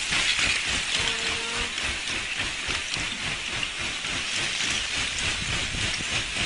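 Ice shove: a mass of broken lake ice pushing ashore, making a steady hissing crackle of countless small ice pieces clinking and grinding together, with many tiny ticks.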